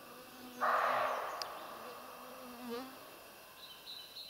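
A flying insect buzzing close by with a steady low hum that wavers and rises briefly before it fades out near the middle. A louder burst of hiss starts suddenly about half a second in and dies away over a couple of seconds.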